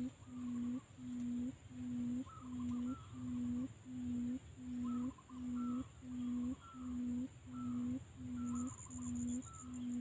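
Barred buttonquail (fighting quail) giving its low booming hoot over and over, an even pulse of about three hoots every two seconds. Fainter, higher chirping calls join it from about two seconds in.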